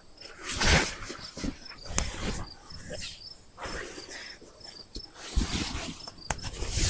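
Insects chirping steadily, a continuous high trill with short repeating chirps, under several louder bursts of rustling and handling noise as camping gear is moved about.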